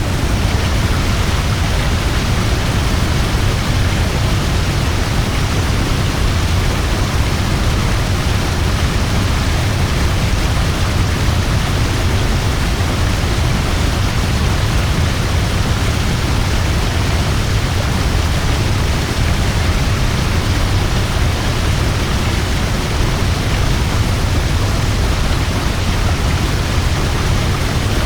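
A waterfall pouring: a steady, dense rush of falling water with a deep low rumble beneath it.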